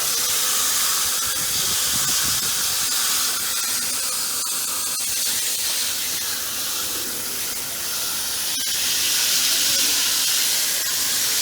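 Steady hiss of a water spray rinsing dirt off vintage window air conditioner parts.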